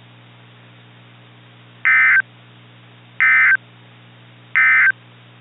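Three short, identical bursts of EAS digital data tones, evenly spaced about 1.3 seconds apart, over a steady low hum. This is the SAME end-of-message (EOM) code that closes an Emergency Alert System activation.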